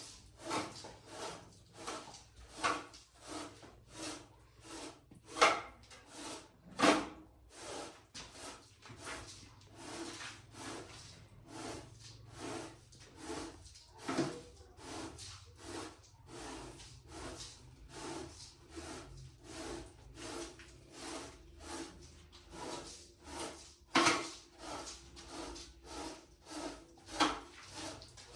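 Repeated scraping strokes at an even rhythm of about two a second, with a few louder knocks among them.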